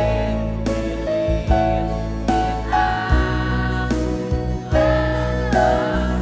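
Children's church choir singing a Christian praise song together over instrumental backing with a steady beat.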